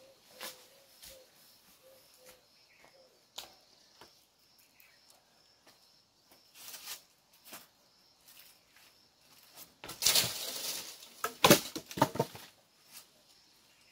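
Faint insect chirping, then about ten seconds in a rustling crash through mango leaves followed by several sharp knocks, as a throw meant to knock mangoes down hits the tree.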